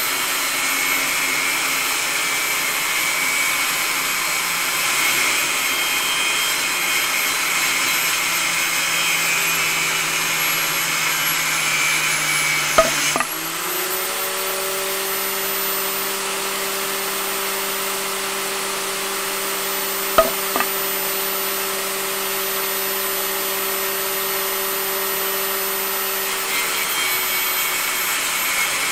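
Homemade miniature cut-off saw, a small electric motor spinning a cutting disc, sawing through a thin wooden branch. It makes a steady whine that slowly sags in pitch under load, then jumps back up with a sharp click about halfway through, around when the branch is cut through. It runs freely after that, with another click a few seconds later, and its tone changes again near the end as it bites into wood.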